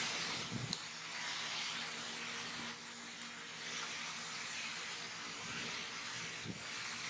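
Steady background hiss with a faint low hum beneath it and a few soft ticks.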